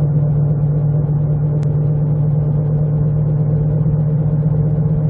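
Jeep Compass on the move with a steady low hum coming from the wheels, over road noise. The owner suspects both wheel bearings are worn out from the vehicle sitting in storage.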